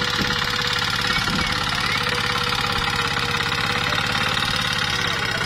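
A red mini power tiller's engine running steadily with a fast, even chugging, while its tines work through dry soil.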